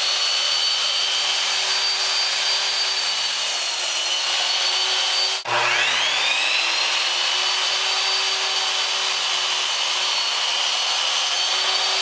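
Electric power saw running at speed while cutting a 1x8 wooden board. About halfway through, the sound breaks off for an instant, then the motor starts up again with a rising whine that settles into a steady run.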